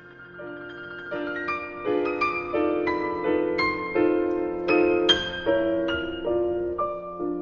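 Gentle piano music fading in, then a slow melody of single notes that each ring and die away.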